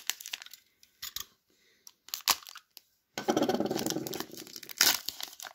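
A knife point picking at and tearing open the wrapper of a trading card pack: scattered small clicks and crinkles, then a longer stretch of tearing and crinkling wrapper about three seconds in, ending in a sharp click.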